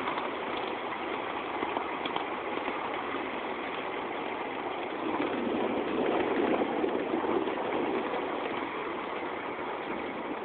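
A small vehicle driving across waterlogged grass, its tyres swishing through standing water, with a steady running noise that swells for a few seconds just past the middle.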